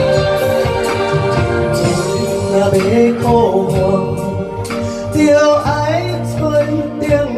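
A woman singing a Chinese song into a microphone over a karaoke backing track with a steady beat, amplified through the room's speakers.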